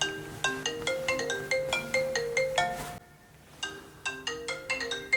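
Phone ringtone ringing: a bright melody of quick plinking notes that plays through, stops briefly about three seconds in, and starts over.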